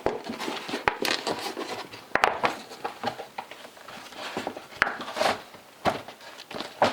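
Handling noise of a large folding fat-bike tire being moved about: rustling and scraping with scattered light knocks, the sharpest about one and two seconds in.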